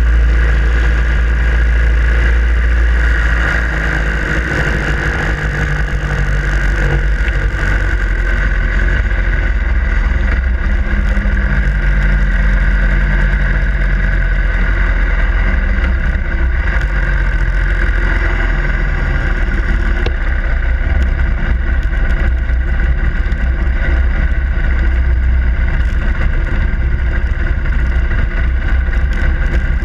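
Harley-Davidson Iron 883's air-cooled V-twin engine running on the move, with wind rushing over the microphone.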